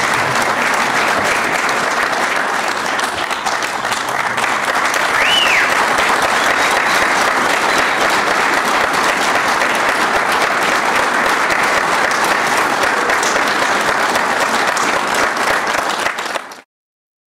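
Audience applauding steadily, with a short high tone rising and falling about five seconds in; the applause cuts off abruptly near the end.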